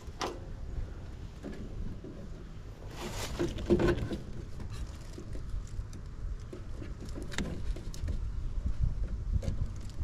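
Scattered clicks and rustles of hands handling wiring and tubing inside the open furnace section of a gas pack, with a busier stretch of handling about three seconds in, over a low rumble.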